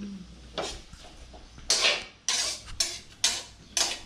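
A metal spatula scrapes and clatters against a steel wok as sliced bamboo shoots are stir-fried, in about six separate strokes.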